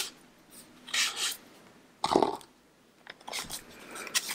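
Thread being pulled through the sewing holes of a hand-sewn sketchbook's paper signatures, with paper handling: a few short rubs with pauses between them.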